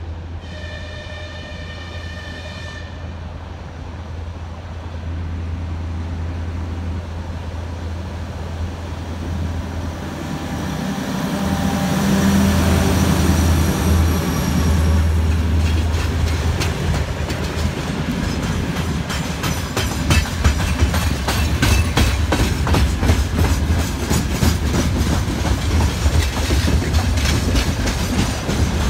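TEM14 diesel locomotive sounds one horn blast of about two and a half seconds, then its diesel engine drone grows louder as it hauls a freight train past. After the locomotive passes, the freight wagons roll by with a steady clickety-clack of wheels over rail joints.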